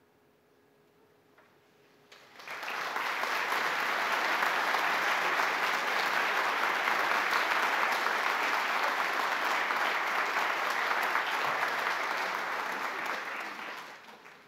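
A couple of seconds of near silence, then an audience breaks into applause about two seconds in, holds steady, and dies away near the end.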